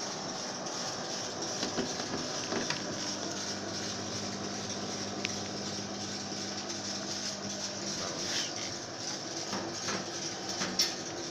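Steady hum of small electric motors running, such as a CO2 laser cutter's air-assist compressor and water pump. A low hum tone in it cuts off about eight seconds in, with a few faint clicks.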